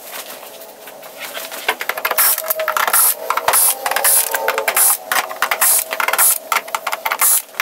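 Cordless drill with a Phillips bit running in short bursts, backing screws out of a Yamaha MOXF8 keyboard's plastic bottom case. The bursts start about two seconds in.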